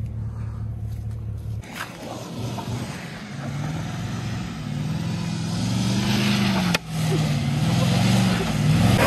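Full-size van's engine revving up and down repeatedly as it is driven hard over a dirt field, heard from outside the van.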